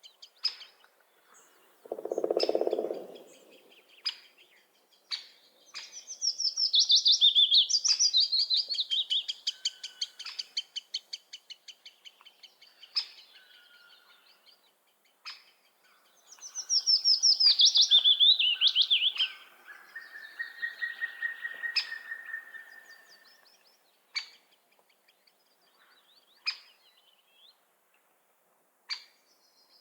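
Songbirds singing: two long songs of rapid notes that run down in pitch, the second ending in a steady lower trill, with single sharp call notes scattered throughout. A short low sound comes about two seconds in.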